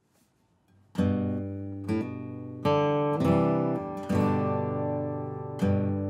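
Gibson J-45 acoustic guitar playing a strummed chord intro. It starts about a second in, with a chord struck roughly once a second and left to ring between strokes.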